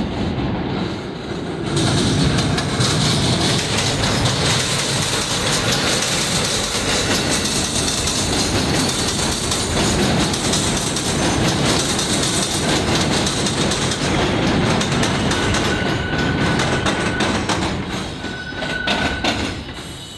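An R62A subway train passing close on elevated track, its wheels clattering over rail joints and switches, getting louder about two seconds in. Brief high wheel squeals come near the end.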